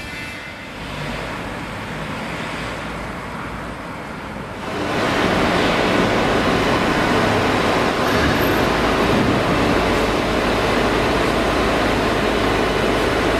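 Faint street traffic noise, then from about five seconds in a loud, steady rushing noise with a low hum: the ambient noise of an underground car park.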